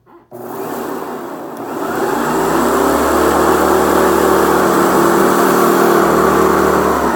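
Hoover Preferred Commercial upright vacuum cleaner switched on: its motor starts suddenly and spins up within about two seconds to a loud, steady running whine and rush. It is running clogged.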